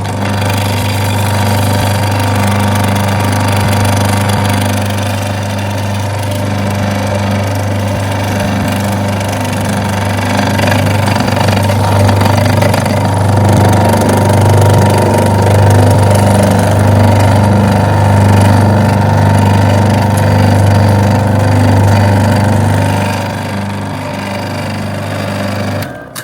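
Electric high-pressure washer running steadily, its piston pump humming with a spray hiss, as used to rinse an air conditioner; it stops abruptly near the end.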